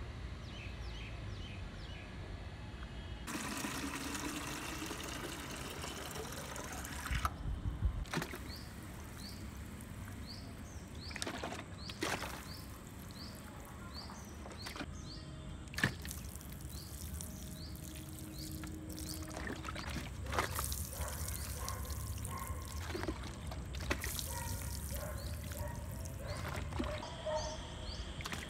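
Water sprinkling from a homemade watering can, a plastic cooking-oil bottle with small holes punched in its cap, its thin streams pattering onto plant leaves and potting soil. It begins a few seconds in and carries on, with a few sharp knocks along the way.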